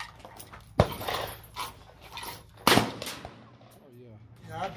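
Rifle gunshots: two loud single shots about two seconds apart, with a few fainter shots between them.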